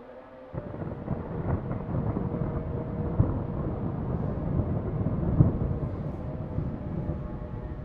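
Thunder: a heavy rolling rumble that breaks in suddenly about half a second in and goes on, with two sharper claps about three and five and a half seconds in.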